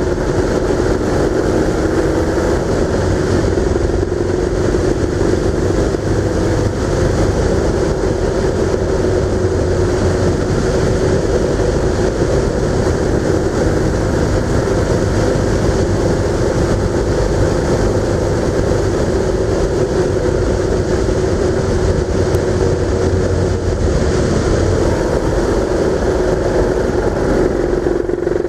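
A road vehicle's engine running steadily while driving, its tone drifting slightly in pitch, under a continuous rush of road and wind noise.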